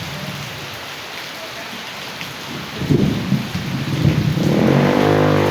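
Steady hiss of heavy rain and rushing runoff water. About three seconds in there is a loud low rumble, and near the end a motor vehicle's engine comes in and rises in pitch as it approaches.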